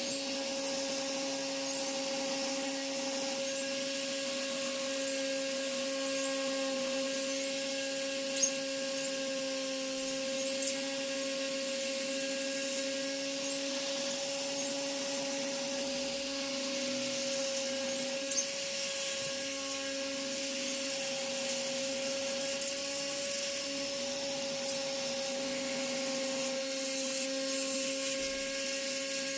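Small power tool's electric motor running at a steady speed, a constant hum that never changes pitch, with a dozen or so short, sharp clicks at irregular intervals.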